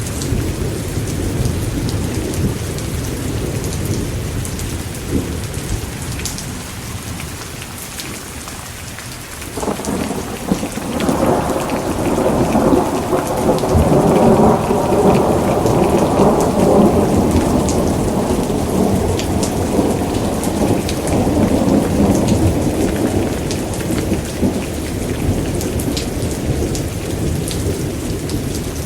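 Thunderstorm: steady heavy rain hissing, with low thunder rumbling beneath. About ten seconds in, a sudden thunderclap breaks into a long rolling rumble that fades out over about ten seconds.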